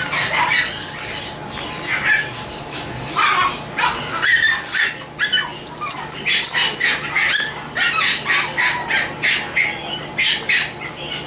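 Miniature dachshund puppies barking at play: short, high barks, scattered at first and then coming quickly one after another from about six seconds in.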